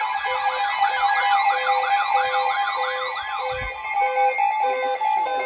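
Electronic siren-style alert from weather radio receivers: rapid up-and-down sweeps, about two and a half a second, over a steady tone and a beep about twice a second. The sweeps stop about three and a half seconds in and quicker pulsing beeps take over near the end. This is the receivers sounding for a new severe thunderstorm warning.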